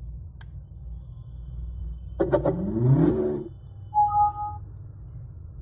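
JBL Bluetooth speaker's power-on sound: a rising electronic sweep a couple of seconds in, followed by a short steady beep about a second later.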